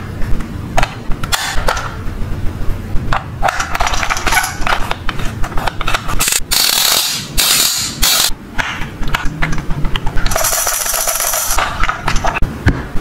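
Plastic toy activity cube being handled: its rotating dials clicking and ratcheting as they are turned, with many sharp plastic clicks and taps. There are two longer rasping stretches, one about halfway through and one near the end.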